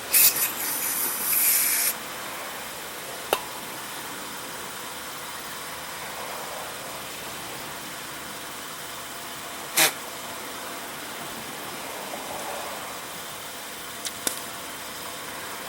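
A spray blast hisses for about two seconds as the passages of a small-engine carburetor are cleaned out, then stops. A few separate sharp clicks follow, one about three seconds in and one near ten seconds.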